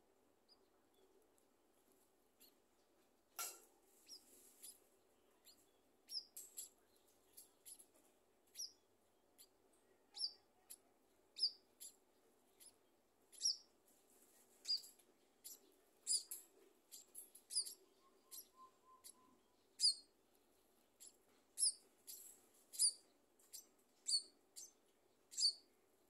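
Scaly-breasted munia nestlings giving thin, high begging squeaks: short single peeps at irregular intervals, coming more often in the second half. A single sharp click sounds about three seconds in.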